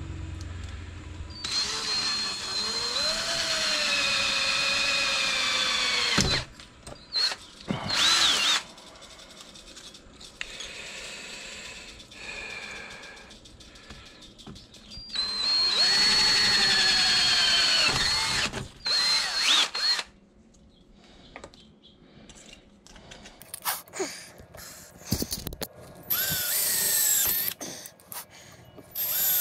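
Cordless drill boring holes through a thin aluminium strip, running in spells of a few seconds with its motor whine sagging in pitch as the bit bites, and short trigger blips in between and near the end.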